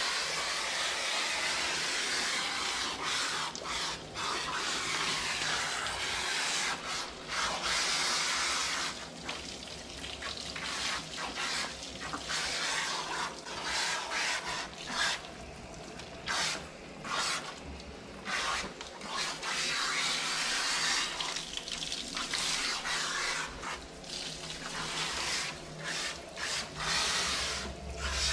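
Water spraying from a handheld hose spray nozzle onto a dog's thick, soapy coat and a tiled shower floor, rinsing out shampoo. The spray is a steady hiss that breaks off briefly again and again as the nozzle is released and squeezed.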